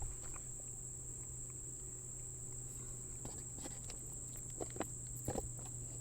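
Steady high-pitched insect chorus, typical of crickets, over a low steady hum, with a few soft knocks and clicks in the second half.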